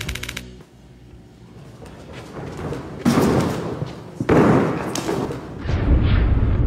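Two heavy thuds about a second apart, echoing as in a large hall, from acrobats launching and landing on the gym's padded floor, followed by a low rumble.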